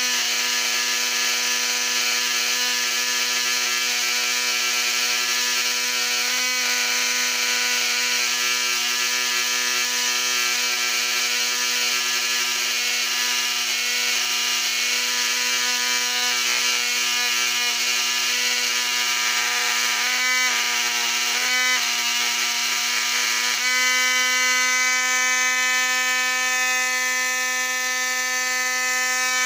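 Electric motor of a flood-damaged Lionel 1065 locomotive running in the hand off its transformer, a steady electric whine, on a bench test of whether it will run again. It stutters twice about two-thirds of the way through, then runs on with a brighter, fuller tone.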